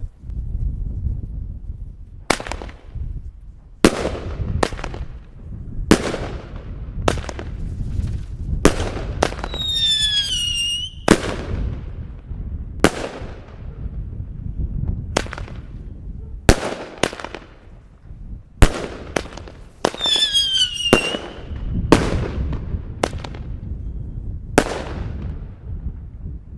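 Argento Thunderbolts F2 single-shot fireworks going off one after another: about twenty sharp bangs at uneven intervals, each trailing off in echo. A short falling whistle sounds twice among them.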